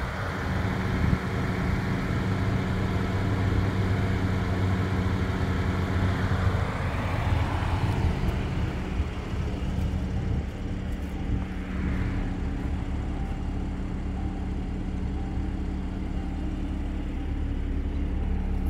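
Mercedes-AMG C43's 3.0-litre twin-turbo V6 idling with a steady low hum.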